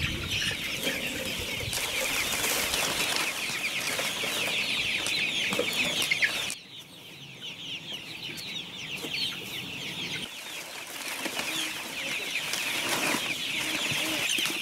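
A crowded flock of young chickens chirping and peeping continuously, a dense chorus of many short high calls. The level drops suddenly about six and a half seconds in, then builds again.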